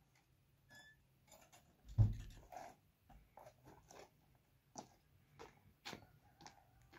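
Wooden plank door being handled and pulled shut, with sharp knocks and a heavier thump about two seconds in, then a run of light footsteps on dry dirt.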